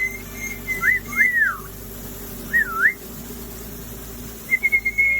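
Parrot whistling: a held whistle, then a few quick swooping whistles that rise and fall about a second in and again near three seconds, and another held whistle near the end.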